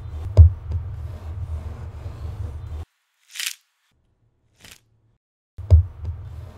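Wooden rolling pin rolling over dough on a tabletop: a steady low rumble with a few knocks, which stops a little under three seconds in. After a short swish as the dough sheet is lifted, the rolling starts again with a knock near the end.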